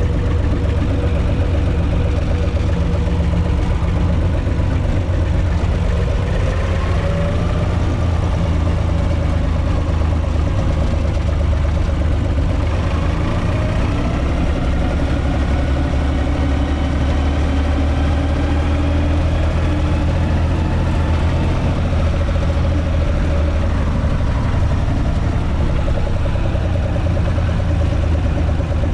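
UTB 445 tractor's three-cylinder diesel engine running steadily as the tractor drives along, heard from inside the cab. A fainter whine slowly rises and falls in pitch over the engine.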